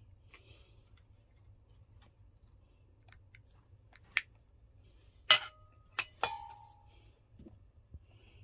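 A metal spoon clinking against a bowl: a few light clicks, then several louder clinks about halfway through, two of which ring briefly.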